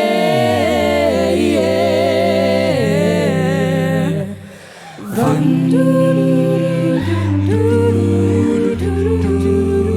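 Mixed-voice a cappella group singing held, humming chords without words. The voices drop away briefly about four seconds in, a single sharp hit follows, and the group comes back in with chords over a low sung bass line.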